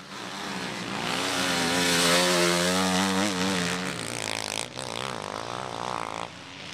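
Enduro motorcycles revving hard through a sandy special test. The first bike passes loudest about two seconds in and fades, and another, quieter bike follows in the second half.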